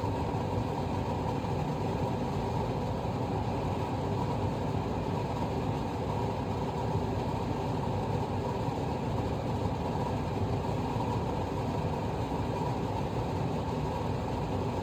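A steady low mechanical hum that runs on evenly with no changes or distinct events.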